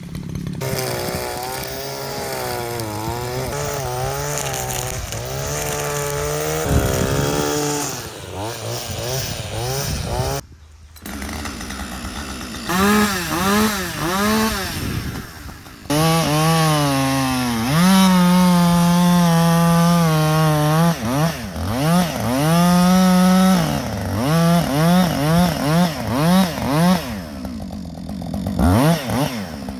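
Two-stroke chainsaw fitted with a 24-inch bar, revving up and down while cutting wood. It is held at high revs for a few seconds past the middle, then blipped on and off in quick bursts near the end.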